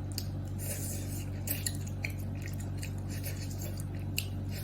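Scattered small clicks and soft mouth sounds of someone eating, with chewing and light utensil taps, over a steady low hum.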